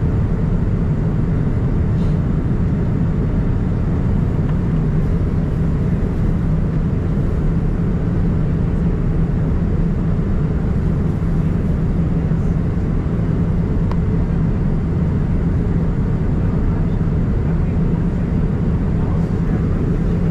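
Steady cabin noise inside a Boeing 787-9 airliner: engines and rushing air make an even, low rumble that does not change.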